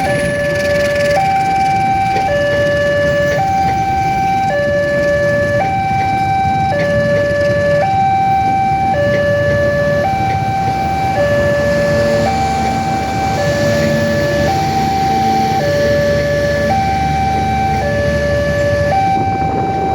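Railway level-crossing warning alarm sounding a two-tone electronic siren, switching between a lower and a higher tone about every second, warning that a train is approaching and the crossing barrier is down.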